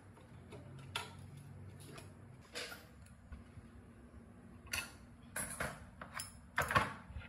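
Irregular knocks, clinks and scrapes of hand tools and metal parts of a small electric flour mill being handled, as locking pliers grip and turn the fitting on the grinding-stone spindle. The loudest knock comes near the end.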